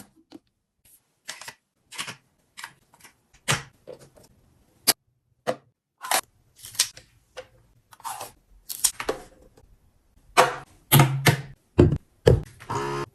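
Irregular clicks, taps and light knocks of small items being handled and set down one after another, busier and louder near the end, where one item rings briefly.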